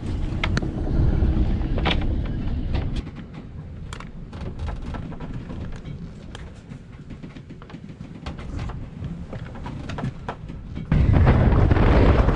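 Sailboat pitching through rough sea: a low rumble of waves against the hull, heard from behind a spray-covered cockpit window, with scattered sharp taps of spray and drops. About eleven seconds in it jumps suddenly to loud wind buffeting the microphone over rushing waves.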